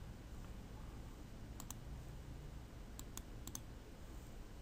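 Faint computer mouse clicks, a handful of them, some in quick pairs, from about one and a half to three and a half seconds in, over a faint steady background hum.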